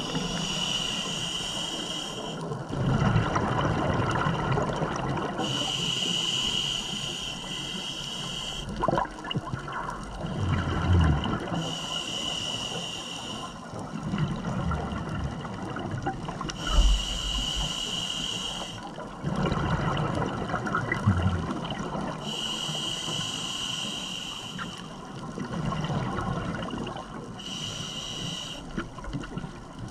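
Scuba diver breathing through a regulator underwater: a hissing inhale of about two seconds every five to six seconds, six in all, each followed by a gurgling rush of exhaled bubbles.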